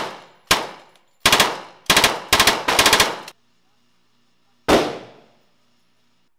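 Thompson submachine gun firing on an indoor range: one single shot, then three quick full-auto bursts over about two seconds. After a pause of over a second, a single gunshot with a long echoing tail.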